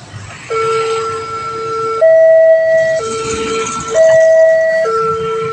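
Railway level-crossing warning alarm sounding to warn that a train is approaching. It is an electronic two-tone siren that starts about half a second in and alternates between a lower and a higher tone about once a second.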